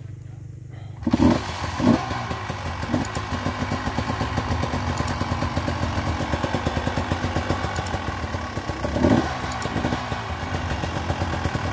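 Enduro dirt bike engine running on a rough trail, with a quick, even beat of firing pulses. It comes in loud about a second in, with short revs then and again near the end.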